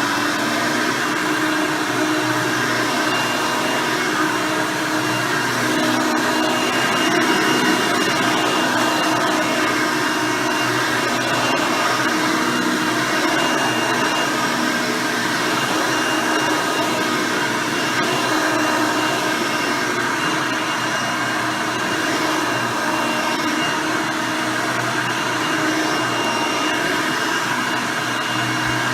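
Hoover Elite II 6.0 upright vacuum cleaner with its 6-amp motor and nine-blade fan running steadily: an even rush of air with a steady motor whine.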